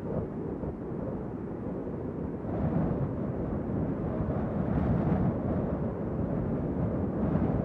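Moderate wind blowing with a steady low rumble that swells in gentle gusts, one rising about two and a half seconds in.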